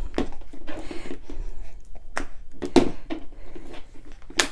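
Fingertips tapping and rubbing on a glass screen protector, pressing it down onto a phone screen to get it to stick: a string of irregular light taps and scuffs.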